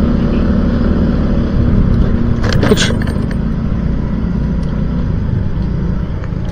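Motorcycle engine running steadily while riding, with a short burst of rattling noise about two and a half seconds in.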